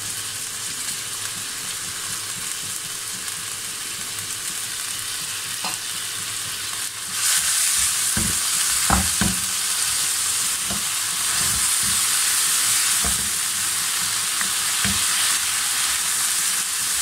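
Soaked, drained moong dal frying in oil in a non-stick frying pan: a steady sizzle that gets louder about seven seconds in. From about eight seconds, a spatula stirring it through the pan adds scattered scrapes and knocks.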